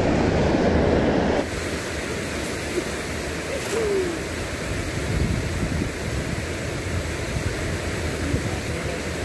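Fast river water rushing over a low concrete weir, a steady noise with wind buffeting the microphone. About a second and a half in it drops suddenly to a slightly quieter, more distant rush.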